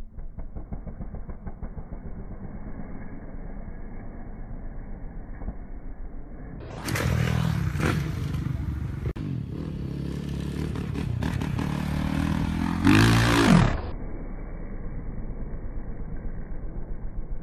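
Dirt bike engines running and revving. The sound is muffled at first, then turns louder and clearer for a stretch in the middle, where an engine revs up sharply, rising in pitch, before it turns muffled again.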